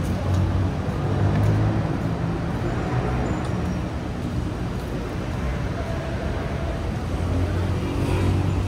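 Steady city road traffic: car engines and tyres running along a busy street, with a low engine hum underneath.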